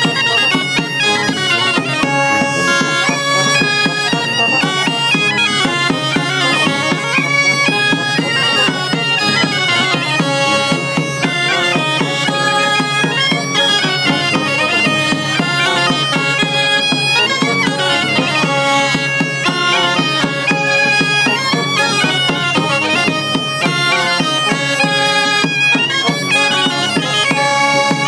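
Bagpipe playing a lively dance tune over a continuous steady drone.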